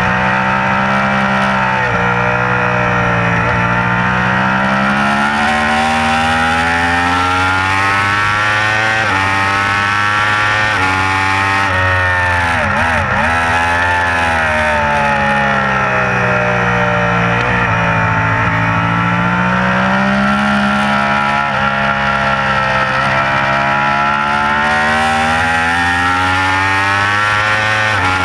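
Yamaha YZF-R1's crossplane inline-four engine pulling hard in third gear at racing speed, with heavy wind rush on the onboard microphone. The engine pitch rises and falls as the throttle is worked, dipping sharply and recovering about halfway through.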